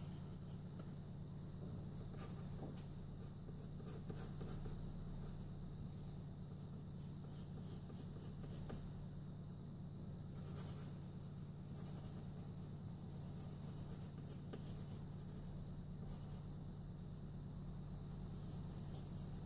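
Graphite pencil scratching across paper in irregular short sketching strokes, over a steady low hum.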